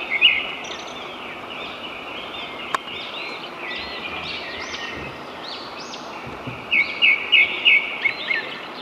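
Wild birds chirping and calling over a steady hiss of forest background, with a run of loud, sharp repeated notes at the start and again near the end. A single brief click sounds about a third of the way in.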